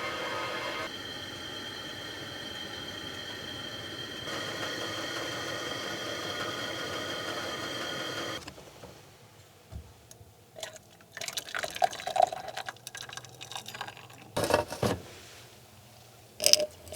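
Soft background music with held chords for the first half, ending about halfway through. Then come quiet scattered clinks and water being poured, with a louder splash or pour near the end and a sharp click just before it ends.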